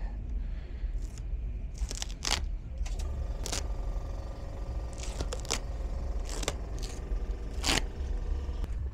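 Scattered sharp clicks, knocks and scrapes over a steady low rumble, with a faint hum from about three to six seconds in.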